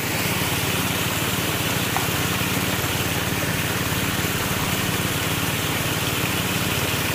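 Small engine of a 2-inch suction gold dredge running steadily, with water splashing as a dog runs through the shallow creek.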